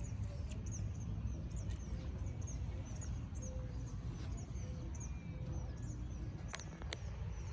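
Small birds chirping: many short, high chirps repeating throughout, over a steady low rumble of wind on the microphone. Two sharp clicks near the end.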